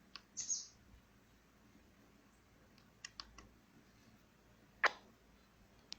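A few scattered clicks over a quiet background, with a short hiss just after the start and the strongest click near the end.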